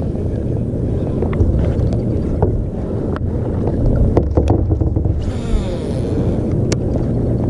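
Wind buffeting an action camera's microphone aboard a kayak, a steady low rumble with scattered small clicks and knocks and a short hiss about five seconds in.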